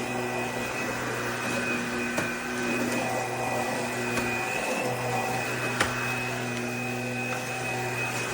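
Bissell PowerClean FurGuard cordless stick vacuum running steadily, its motor giving a constant hum with a high whine over it. A couple of sharp clicks sound in between.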